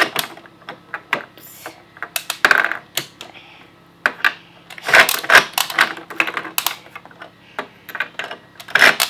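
Plastic toy screws and parts of a VTech Drill & Learn Toolbox clicking and clattering as they are handled and knocked over: a string of irregular sharp clicks and knocks.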